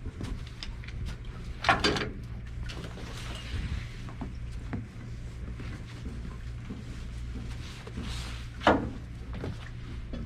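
Clanks and knocks of metal being handled as the recovered welding clamp and magnet are dealt with, the two loudest about two seconds in and near the end, over a steady low hum.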